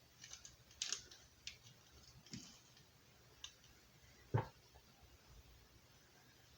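Faint scattered crunches and clicks from a crunchy wafer chocolate bar being eaten, with one louder thump about four seconds in.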